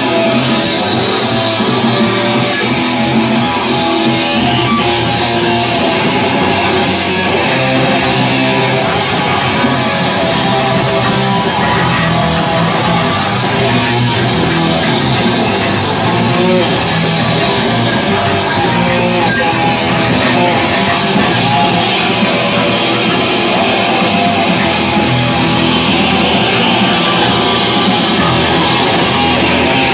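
Live rock band with electric guitars playing loudly and without a break.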